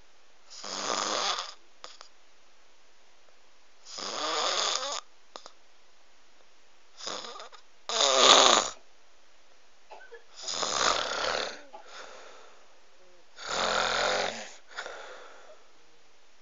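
Loud rhythmic snoring: a rasping snore about every three seconds, each lasting about a second, the one near the middle the loudest.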